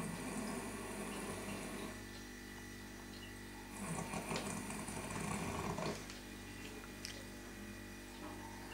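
A sleeping man snoring: two long snores, each about two seconds, the second starting about four seconds in.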